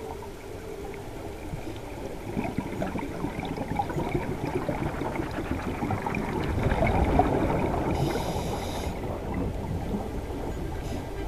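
Underwater sound of scuba divers' exhaled bubbles rising from their regulators: a dense crackling gurgle that swells to its loudest a little past the middle, with a short hiss about eight seconds in.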